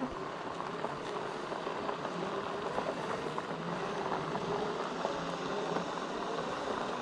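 Segway personal transporters riding along a dirt path: a faint electric-motor whine that rises and falls with speed over the rolling of the tyres on grit, with wind on the microphone.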